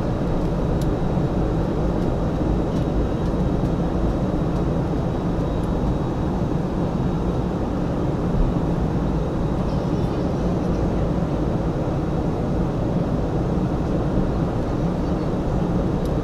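Steady drone of an airliner's engines and rushing air, heard inside the passenger cabin during the descent, with a faint steady high whine above it.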